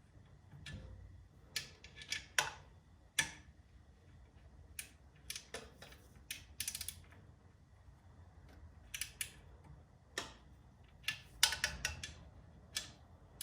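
Irregular metallic clicks and taps of a 13mm wrench and a pry bar working the alternator mount on a BMW R1200C boxer engine, as the alternator is levered out to put tension on it and its bolt is snugged down.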